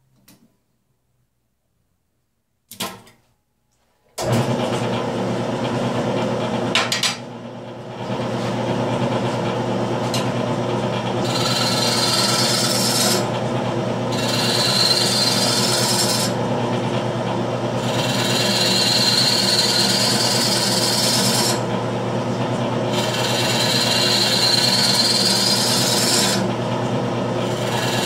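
After near silence and a single knock, a wood lathe switches on about four seconds in and runs with a steady motor hum. From about eight seconds a bowl gouge roughs the spinning wet mulberry bowl blank in repeated cutting passes of a few seconds each, a loud rushing, shaving noise with short pauses between the passes.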